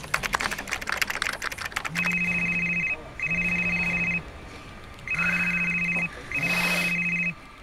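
Fast typing on a computer keyboard for about two seconds, then a smartphone ringing with an incoming call: a trilling double ring, each ring about a second long, heard four times. A brief rush of noise sits under the fourth ring.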